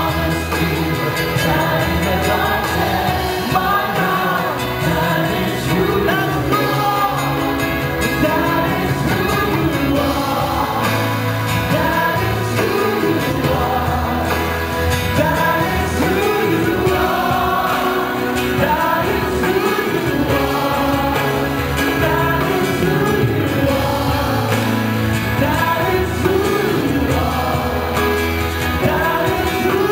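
Christian worship song: a group of voices singing together over amplified backing music with a steady bass.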